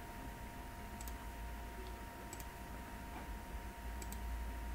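Computer mouse clicking a few times, a single click and then close double clicks about every second and a half, over a faint steady electrical hum.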